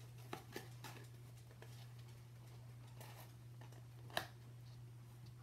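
Faint rustling and light taps of hands handling a cardboard tube and pressing on blue masking tape, with one sharper click about four seconds in. A steady low hum runs underneath.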